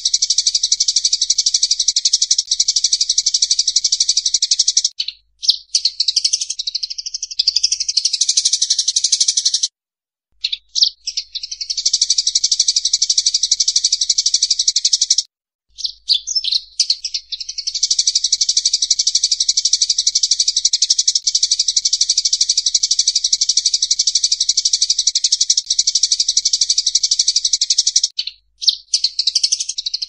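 Sparrows fighting: a dense, rapid, continuous chattering of high chirps, in long runs broken by a few brief pauses.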